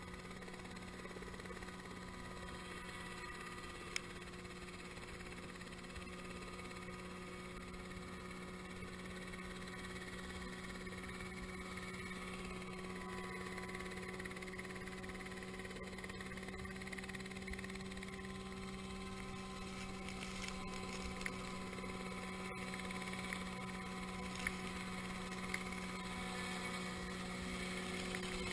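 Dynali H3 ultralight helicopter on floats running on the water: a steady engine and rotor drone that grows slowly louder as it comes closer.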